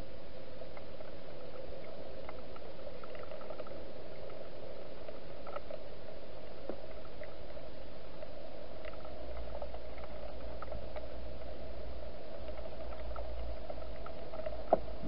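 Wild hedgehog eating inside a plastic feeding box: faint, irregular crunching clicks over a steady hum and hiss, with one sharper click near the end.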